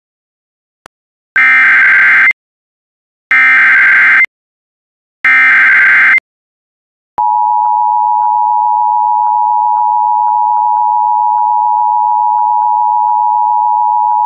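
Emergency Alert System tones for a relayed flash flood warning. First come three one-second bursts of SAME header data, a harsh digital warble, about two seconds apart. After a short gap, the steady two-tone EAS attention signal starts about seven seconds in and holds; this signal introduces the spoken warning.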